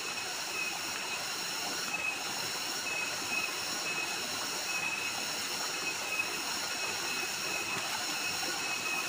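Small waterfall splashing steadily into a rocky stream pool: an even rush of water, with a faint high, steady tone breaking on and off behind it.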